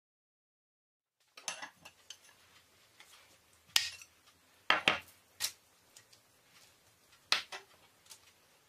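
Pastry brush clinking and knocking against a clay bowl and the baking tray while egg-yolk and yogurt glaze is brushed onto pide dough. The sharp clicks begin about a second in, with a quick pair near the middle and another clink near the end.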